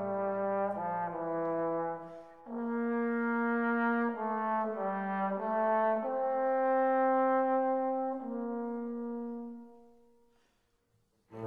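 Background music of slow, held chords that change every second or so and fade away about ten seconds in; a new passage of music starts right at the end.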